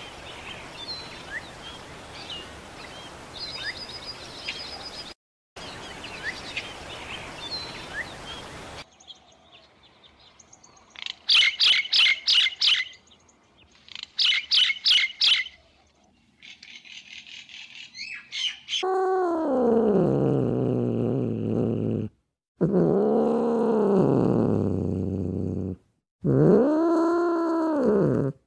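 Small birds chirping, first scattered chirps over a steady background hiss, then loud quick series of chirps. In the second half come three long drawn-out animal calls, each rising and then falling in pitch, with short silent gaps between them.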